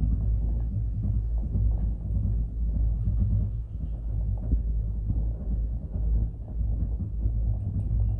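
Cable car gondola running along its cable, a steady low rumble that wavers slightly in loudness.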